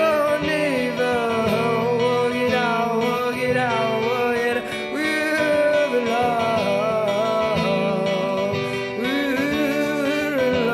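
A band's song: a voice singing a wavering melody over guitar and steady low held notes.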